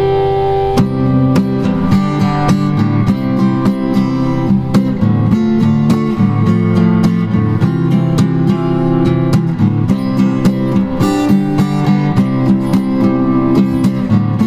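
Background music: a guitar playing a steady run of plucked notes, after a held chord that gives way about a second in.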